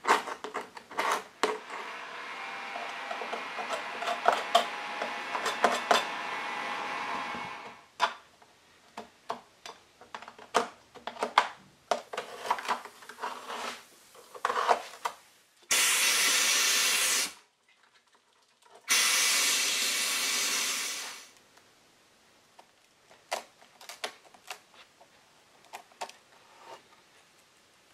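Hand scraper and knife picking and scraping hard old glazing putty out of wooden window muntins, with many scratches and clicks. A heat gun blows twice near the middle, each burst about two seconds, softening the stubborn putty.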